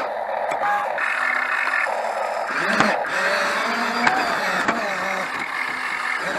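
Excavator at work: a motor whine rising and falling in pitch, with stretches of hiss and a few sharp clicks.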